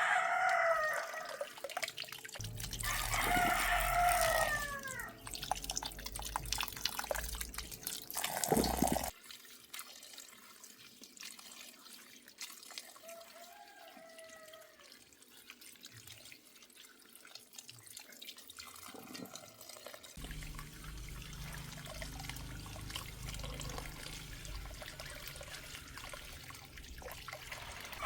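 Rooster crowing: one crow at the start and a second about three seconds in, with a fainter call near the middle. A low rumbling noise comes and goes underneath.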